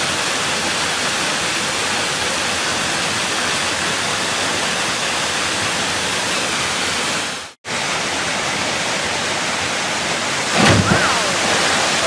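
Waterfall cascading over rocks: a steady, loud rush of falling water that breaks off for an instant about seven and a half seconds in. Near the end a person plunges into the rock pool below with a heavy splash.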